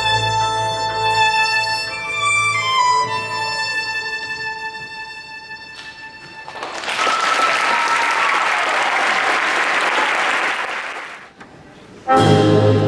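Slow instrumental music for the dance fades out, and the audience applauds for about four seconds. Near the end, loud orchestral music for the next dance starts abruptly.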